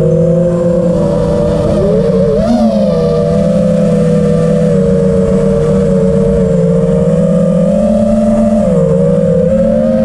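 Electric motors and propellers of an FPV quadcopter running, a steady whine of several close tones. The pitch rises about two and a half seconds in and dips briefly near the end as the throttle changes.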